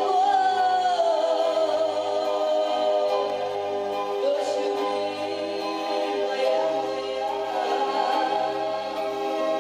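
Two women singing a Romani (Gypsy) song, holding long notes that slide in pitch, over an instrumental backing with a pulsing bass.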